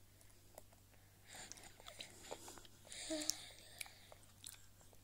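Baby's quiet mouth sounds while eating yogurt off a spoon: faint smacking and small clicks, with a brief soft voiced sound about three seconds in.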